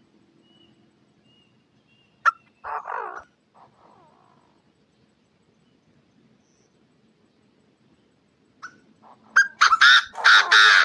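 Chinese francolin calling: one short harsh call about two and a half seconds in, then a loud run of calls near the end. These are lure calls of a male and female, played to draw wild francolins into traps.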